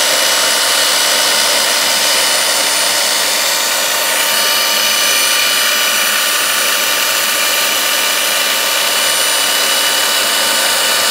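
Electric pipe belt sander running steadily, its abrasive belt wrapped around a 5-inch titanium exhaust tube to polish it.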